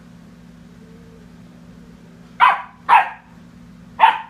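Black Mouth Cur puppy barking three times: two short barks close together, then a third about a second later.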